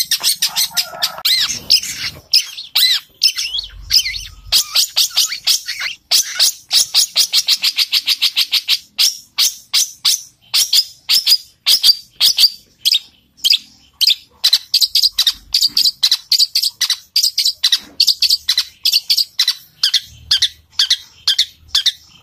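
Long-tailed shrike (cendet) singing a fast, unbroken run of short, sharp, sparrow-like chirps, several a second with only brief pauses: the shrike in full song mimicking the calls of fighting tree sparrows.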